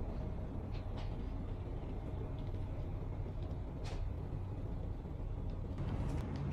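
Steady low rumble of room background noise with a few faint clicks.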